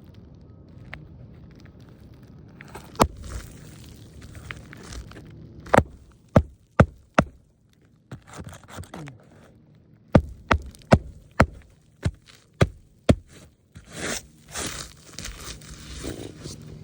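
Tool work on a brittle roof shingle: a series of sharp knocks, several coming in quick runs about half a second apart, followed near the end by scraping and crunching as the shingle is worked loose.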